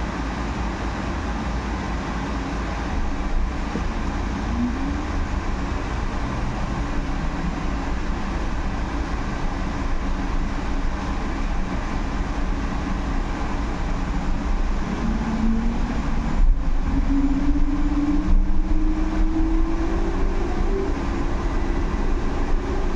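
Cabin noise inside a Solaris Urbino 18 electric articulated bus on the move: a steady rumble and road noise. From about two-thirds of the way in, the electric drive's whine rises steadily in pitch as the bus picks up speed.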